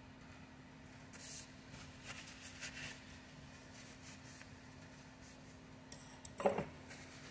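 Paper towel rustling and being rubbed in gloved hands as grease is wiped off, in a few short scratchy strokes, over a faint steady hum. Near the end comes a single short knock, the loudest sound.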